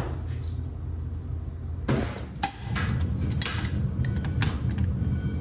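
Wheelock motor fire alarm bells ringing steadily in alarm, with a few sharp clicks and knocks, the loudest about two seconds in.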